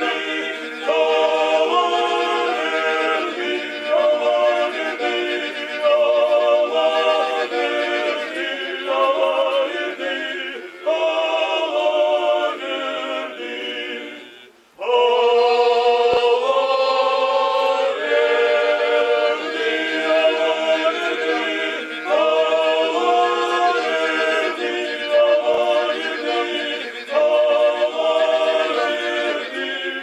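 Male choir singing a cappella in close harmony, the chords changing about once a second, with a brief break about halfway through before the singing resumes.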